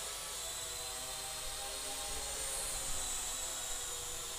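Small RC VTOL aircraft's electric motors and propellers whining steadily as it hovers, the pitch lifting briefly about halfway through.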